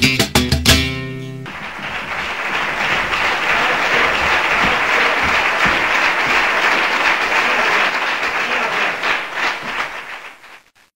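Flamenco guitar strumming the closing chords of an alegrías, the last chord cut off about a second and a half in, followed by audience applause that fades out near the end.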